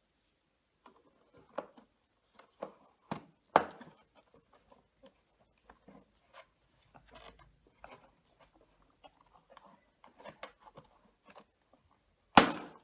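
Irregular plastic clicks and knocks from handling and taking apart a vacuum cleaner to get at its snapped drive belt, with a sharper, louder knock near the end.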